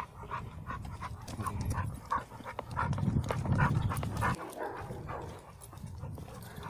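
American Staffordshire Terrier panting in quick, even breaths, with a low rumble from about three to four seconds in.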